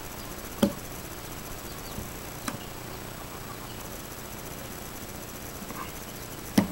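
A few small clicks and taps of shotgun-shell components being handled and seated in a hand-loading tool: a sharp click about half a second in, a faint one midway and another near the end. Under them runs a steady, high insect chirring.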